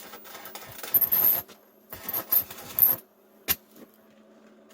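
Metal clinking and scraping in short bursts, then a single sharp click about three and a half seconds in, over a low steady hum.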